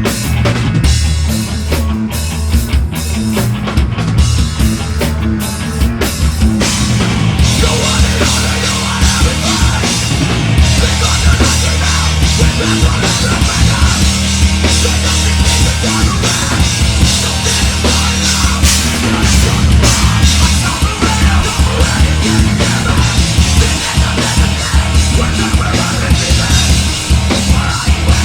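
Heavy metal band playing live, drums and distorted guitars with no vocals; the playing thickens into a dense, cymbal-heavy wall about seven seconds in.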